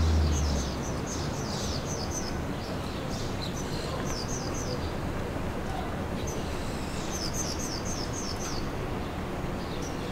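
Small birds chirping in quick runs of short, high chirps, three bouts in all, over a steady hiss of outdoor city noise. A low rumble cuts off within the first second.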